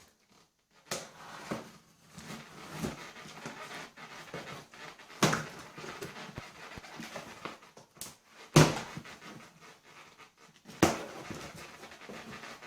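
Cardboard box and packaging being opened and handled: an uneven rustling and scraping with several sharp knocks, the loudest a little past the middle.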